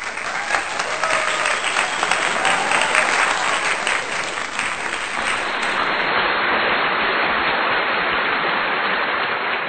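A crowd applauding: dense, steady clapping that starts abruptly and carries on, sounding duller from about six seconds in.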